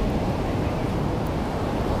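Ocean surf washing steadily onto the beach, with wind on the microphone.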